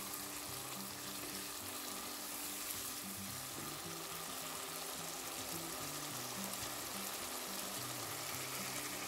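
Spiced dal masala sizzling steadily in hot oil in a nonstick wok, stirred at first with a wooden spatula. Soft background music with low held notes plays underneath.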